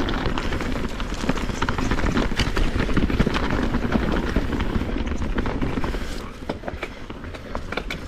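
Kona Process X mountain bike riding fast down rocky dirt singletrack: steady tyre and wind rush on a GoPro microphone, broken by rapid rattles and knocks over rocks, easing off a little after about six seconds.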